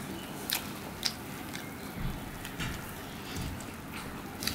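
A person chewing a crunchy puffed-rice ball with the mouth close to the microphone, giving a few scattered crisp crackles.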